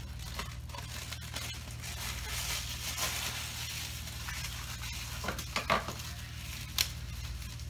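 Plastic oven cooking bag rustling and crinkling as it is gathered up and twisted shut, with a few sharp crackles near the end. A low steady hum runs underneath.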